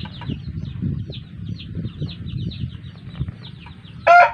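Chickens: rapid high peeping chirps, several a second, over low handling noise. Near the end a loud rooster crow begins.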